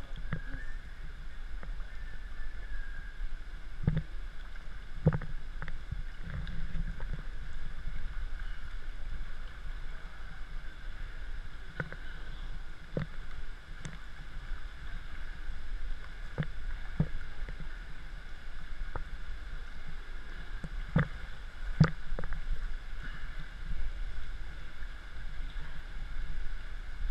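Water splashing and lapping right at a camera held at the surface by a swimmer, with about a dozen sharp irregular splashes or knocks over a steady rush of water.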